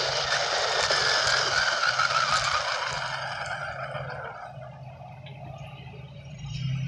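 Traxxas Bandit RC buggy's brushed motor and tyres running flat out on a 2S LiPo, a rushing whine that fades and drops in pitch about three to four seconds in as the car slows.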